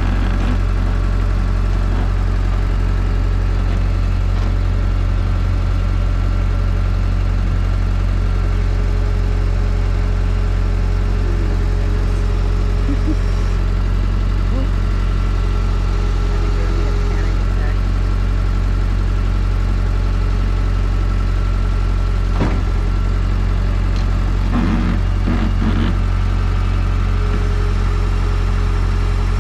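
Vehicle engine running steadily at a low idle. A single knock sounds about two-thirds of the way through, with a brief clatter a couple of seconds later.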